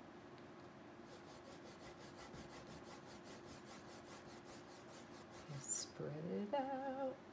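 Faint scrubbing of a paintbrush spreading thin acrylic paint across a canvas, in rapid repeated back-and-forth strokes. Near the end a brief voice sound with a wavering pitch, louder than the brushing.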